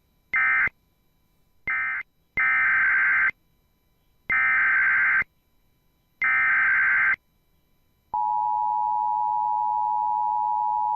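Emergency Alert System tones: two short and then three longer (about one-second) bursts of SAME digital data tones with silent gaps, the header of the next alert, a tornado warning. About eight seconds in, the steady two-tone EAS attention signal begins.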